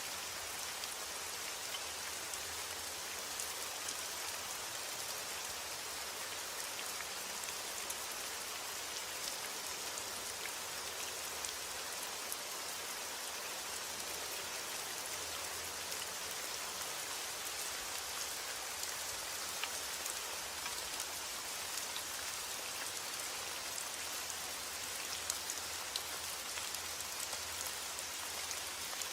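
Heavy rain falling steadily on a forest: a dense, even hiss with scattered sharper drop hits.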